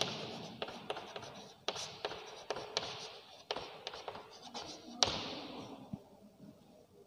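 Chalk writing on a chalkboard: a string of short taps and scratches as the words are written, with a sharper tap about five seconds in.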